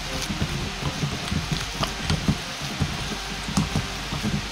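Hands kneading a ground pork and tofu meat mixture in a stainless steel bowl: a quick, irregular run of soft wet squishing clicks.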